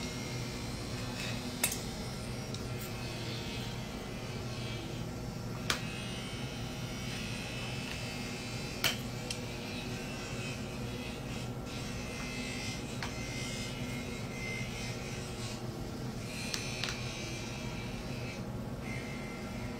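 Steady electrical buzz with a few faint clicks over it.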